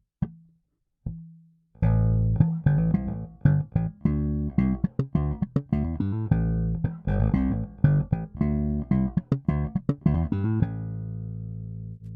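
Fender Japan Jaguar Bass electric bass played direct into a preamp and audio interface: two single plucked notes, then a quick unaccompanied bass line of many notes. It ends on a low note left to ring out and slowly fade.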